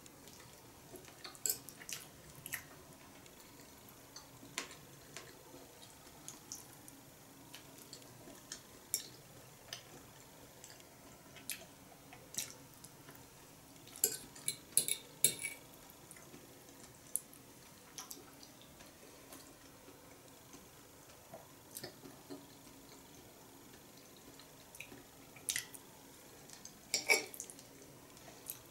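Scattered light clicks and taps of a fork on a plate, with the small wet mouth sounds of eating; the clicks bunch together about halfway through and again near the end.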